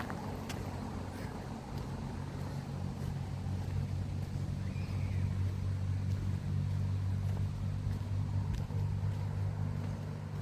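A steady low engine hum, holding one pitch throughout and swelling slightly in the middle.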